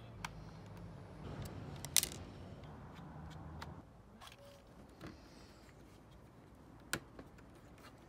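Small clicks and taps of a screwdriver taking the screws out of an Apple keyboard's plastic bottom case, the sharpest click about two seconds in. A low steady hum sits underneath for the first few seconds.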